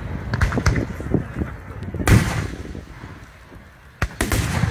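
Aerial firework shells bursting overhead: several sharp bangs in the first second, a big boom about two seconds in that rumbles away, then a fresh run of bangs near the end.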